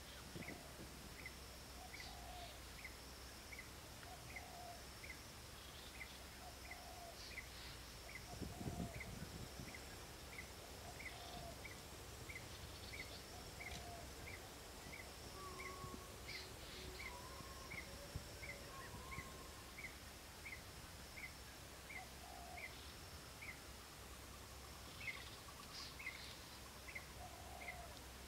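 Faint countryside ambience: a steady high insect drone, a regular chirp repeating about twice a second, and short bird calls at intervals. A brief low thump about eight and a half seconds in is the loudest moment.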